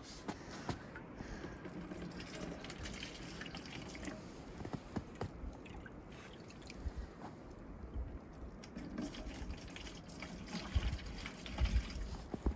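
Water trickling and dripping, with scattered small clicks and a few low knocks near the end.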